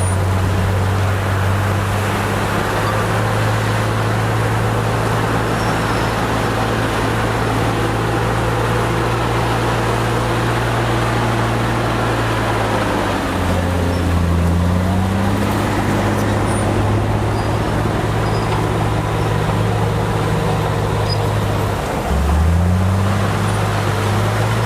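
Komatsu D53P bulldozer's diesel engine running hard and steadily; its pitch sags twice, once about halfway through and again near the end, each time climbing back up.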